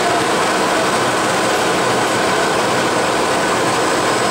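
Steady, unbroken machine and air noise from a running lab-scale blown film line.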